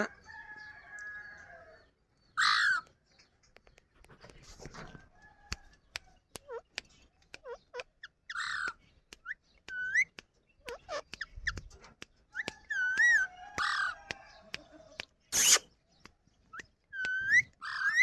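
Indian ringneck parakeets calling: several loud, short screeches, with whistled notes that bend up and down between them and scattered sharp clicks.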